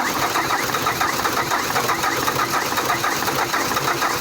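Starter motor cranking the Ford Ranger's four-cylinder turbo-diesel with a fast, even rhythm, without the engine catching. This is a hard cold start, which the owner suspects comes from worn glow plugs.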